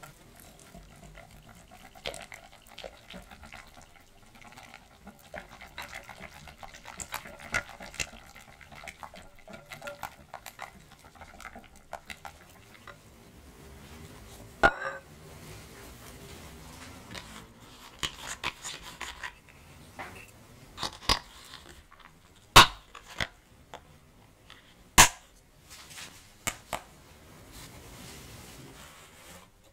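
Wire balloon whisk stirring a batter in a glass bowl: quick, busy scraping and clinking of the wires against the glass. After that comes a scattering of sharp clicks and knocks, the two loudest near the end.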